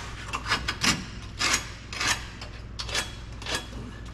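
Short scratching strokes, about two a second, as a marking tool is drawn along the steel of a Jeep YJ frame to trace the outline of a repair panel held against it.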